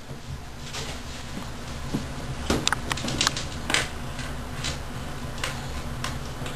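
Scattered light taps and knocks, about ten over a few seconds, as small toys are handled against a bathtub, over a steady low hum.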